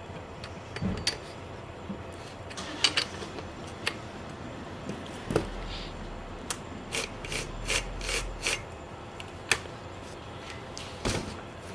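Scattered clicks, taps and light knocks of chainsaw parts and tools being handled and fitted during assembly, with a run of quick clicks in the second half. No engine is running.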